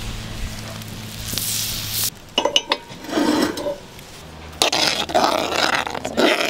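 Cookware being handled: a steady low hum for about two seconds, then after a sudden cut, clinks and irregular scraping and clattering of pots and utensils.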